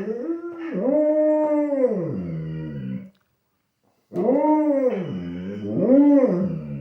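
Labrador retriever howling like a wolf, set off by dogs on the TV: two long howls, each swelling up and down in pitch, with a pause of about a second between them.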